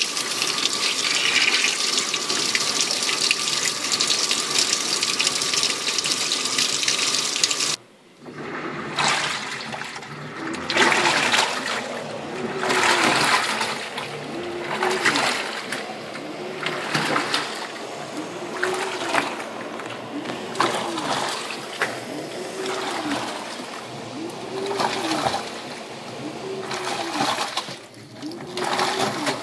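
Top-loading Waveforce 14 kg washing machine on its jeans cycle. Water pours steadily into the drum at first. After a cut about 8 s in, the drum agitates the jeans back and forth, sloshing the wash water in swishes about every two seconds.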